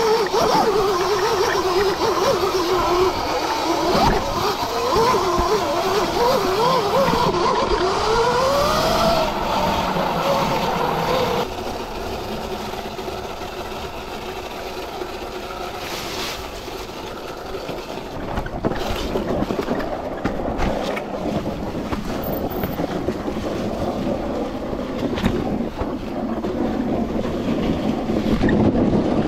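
Sur-Ron electric dirt bike being ridden: the electric motor's whine rises and falls in pitch with the throttle over a steady rushing noise. About eleven seconds in the sound drops suddenly and turns quieter, mostly rushing noise, then grows louder again near the end.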